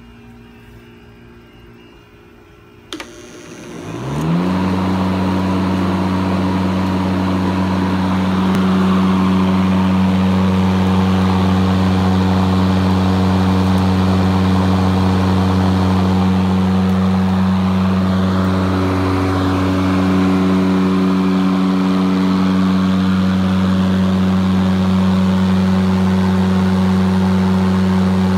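Electric motor of a home-built electric lawn mower, mounted on a John Deere push-mower deck, switched on with a click about three seconds in, spinning up with a rising whine, then running at steady speed with a loud, even hum.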